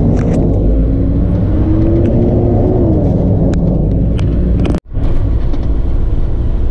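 Heavy diesel truck driving: a deep, loud engine rumble whose pitch climbs and then falls, as in a gear change. The sound drops out abruptly for an instant near the three-quarter mark, then the engine runs on at a steady pitch.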